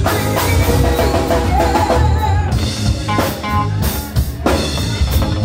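Live band playing a blues-soul song with electric guitar, bass guitar and drum kit, the drum strokes standing out in the second half.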